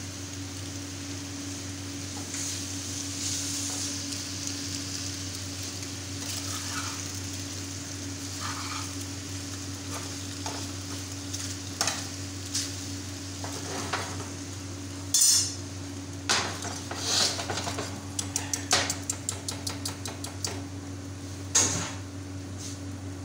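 A metal slotted spatula stirring and tossing penne pasta in a nonstick frying pan, scraping and clicking against the pan, with the clatter densest in the second half. A steady low hum runs underneath.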